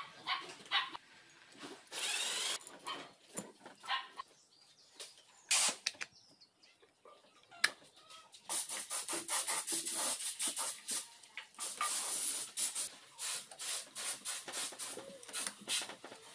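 Hands handling and fitting the aluminium cylinder and cylinder head of a 100cc Super Cub-type engine: scattered clicks and scrapes of metal parts being seated on the studs, then a quick run of rubbing and clicking strokes through the second half.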